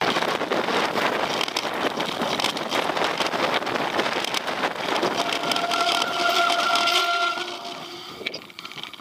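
Mountain bike rolling fast over a rough trail: tyres on rock and gravel, rattling and clattering, with wind on the microphone. A steady high squeal sounds for about two seconds past the middle, and the noise then dies down near the end as the bike slows.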